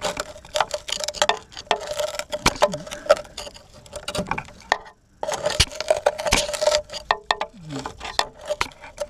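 Irregular knocks, clicks and scraping of hands and tools working on the rusted steel chassis and body, with a brief drop-out about five seconds in.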